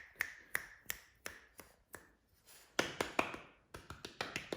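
A series of sharp clicks or taps, about two to three a second, pausing briefly and then coming back quicker and louder near the end.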